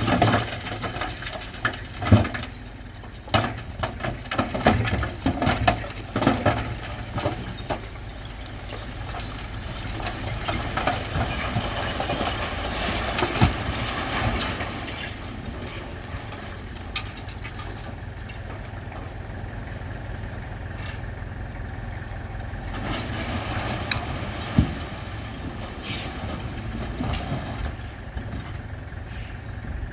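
Bulldozer's diesel engine running steadily, with a cluster of sharp knocks and clanks in the first several seconds and a few single knocks later on.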